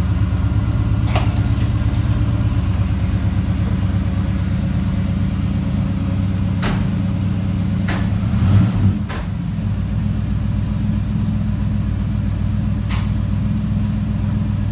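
1967 Chevrolet Caprice's V8 engine idling steadily, blipped up briefly about eight and a half seconds in and settling back to a slightly lower idle. A few sharp clicks are heard over it.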